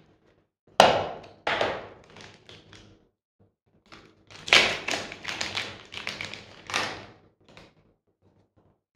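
Clear plastic product boxes being opened and handled. There is a sharp tap about a second in and another half a second later, then a run of small clicks and taps from about four to seven seconds in.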